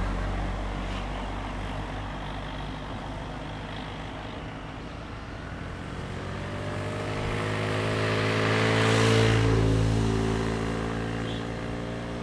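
Motor vehicle engines. One fades away over the first few seconds; then another grows louder to a peak about three-quarters of the way through and eases off.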